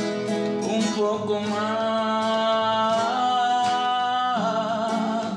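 Background music: a Spanish-language love song with acoustic guitar and a male voice, one note held for about three seconds near the middle.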